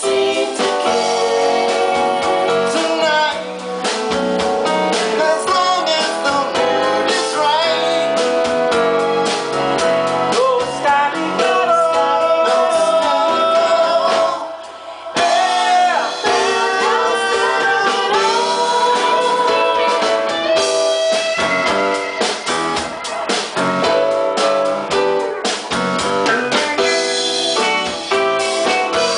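A live band playing a song with singing, electric guitars, bass, drum kit, keyboard and saxophone. The music drops out briefly about halfway through, then comes back in full.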